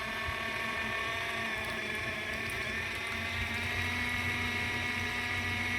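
Small portable washing machine running in a bucket of water, its electric motor giving a steady hum as it washes a small blanket.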